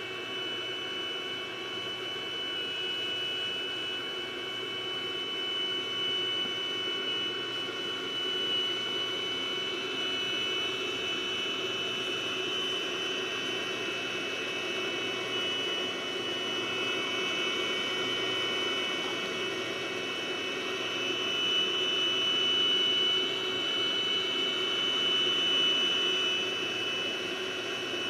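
A 2005 iMac G5 rev A running under load: steady fan noise with a high-pitched electrical whine and hum from its power supply. The owner traced this power noise to a faulty logic board, since replacing the board cured it.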